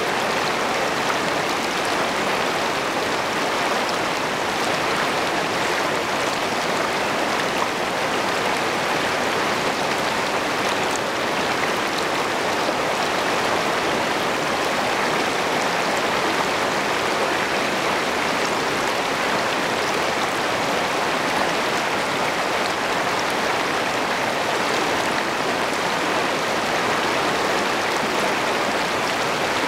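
Shallow river rapids rushing over rocks, heard from right at the water's surface: a steady, unbroken splashing rush.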